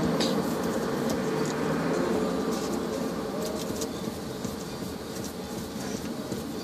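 Steady, fading hum of vehicle noise, with a few faint ticks.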